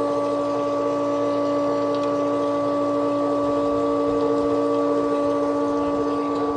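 Excavator's diesel engine and hydraulic pump running at a steady speed, a constant droning hum with a held whine.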